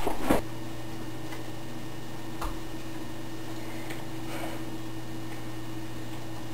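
Quiet room with a steady low hum and no speech; a faint soft knock about two and a half seconds in.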